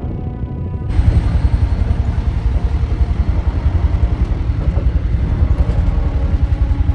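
Military helicopter heard from inside the troop cabin: dense, steady rotor and engine noise with a fast low pulsing beat. It jumps abruptly louder about a second in.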